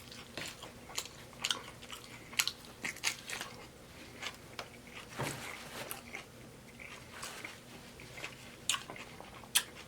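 Close-miked chewing of a mouthful of taco salad, with irregular crisp crunches.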